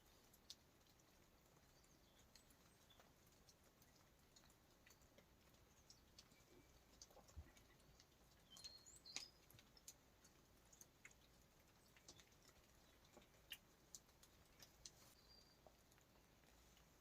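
Near silence with faint, scattered ticks and taps at irregular intervals.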